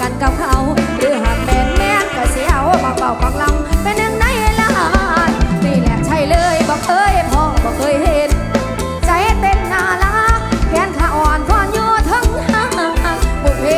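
Live Isan mor lam band music with a steady, driving beat and a wavering, ornamented melody line over it.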